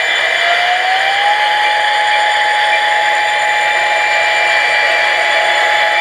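HO-scale SD40-2 model locomotive's sound decoder playing diesel locomotive engine sound, running steadily and loud. A whine rises in pitch over the first second or so, then holds steady.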